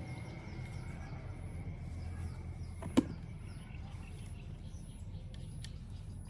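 One sharp knock about three seconds in, over a steady low outdoor background hum.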